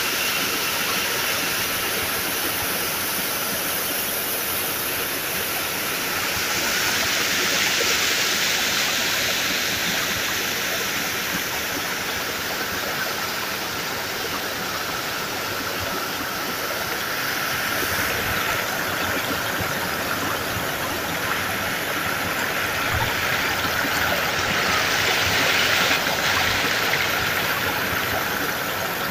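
A rocky forest stream rushing steadily over and between stones. The water noise swells a little about a quarter of the way in and again near the end.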